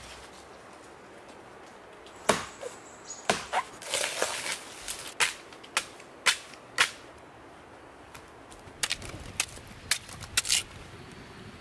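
Machete chopping into a fibrous plant trunk: a run of about eight sharp strikes, then after a pause a quicker cluster of cuts as pieces are sliced off.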